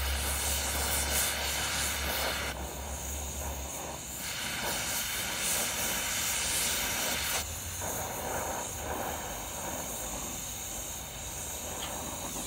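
Oxy-fuel cutting torch (an oxyMG2 torch) hissing steadily as it cuts a window through a rusted steel exhaust pipe, throwing sparks. The hiss grows and eases in strength a few times.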